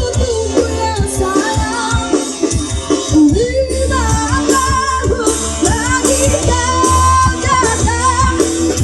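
Pop song: a singing voice carrying a bending melody over a steady bass line and a drum beat.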